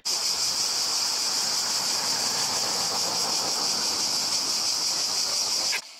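A chorus of cicadas: a steady, high-pitched shrill buzz that cuts off abruptly near the end.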